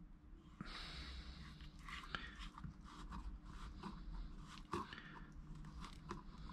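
Faint plastic clicking and scraping as a grey plastic threaded fitting is twisted by hand into a white plastic housing, with a few sharper ticks along the way.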